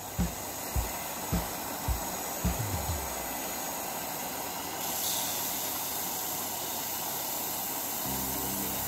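Benchtop disc sander running with a block of cured epoxy resin pressed against its sanding disc: a steady grinding hiss that gets brighter about five seconds in as the block is worked against the disc. Soft low thumps about twice a second run through the first three seconds.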